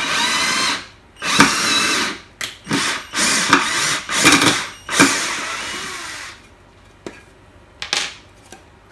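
Workzone cordless drill-driver running on a large screw in a wooden board in about six short bursts, the last one longer and tailing off. A couple of light knocks follow near the end.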